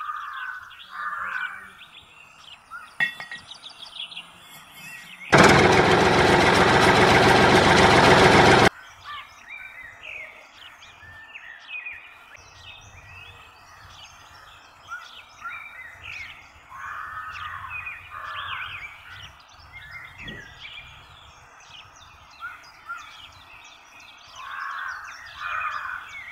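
Small birds chirping over outdoor background noise, with a small model motor running loudly for about three seconds about a fifth of the way in.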